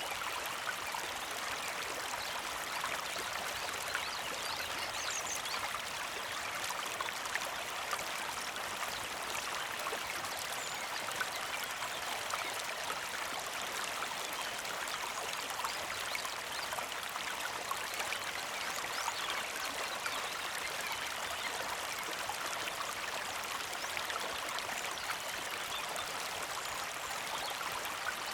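Creek flowing steadily with a gentle trickle, and a few faint, high bird chirps now and then.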